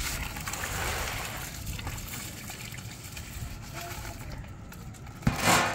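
Soaked rice poured from a plastic tub into a large aluminium pot of boiling water and masala, splashing and sloshing as it goes in once the water has come to the boil. The pouring is loudest in the first two seconds and eases off; a short, loud clatter comes just before the end.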